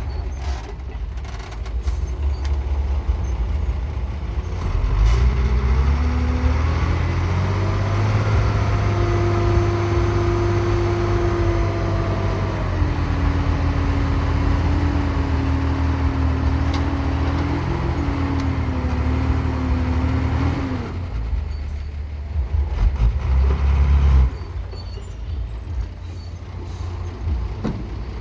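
Dump truck's diesel engine rumbling. About five seconds in it revs up and holds high with a steady whine for about twelve seconds, then drops back to a low rumble.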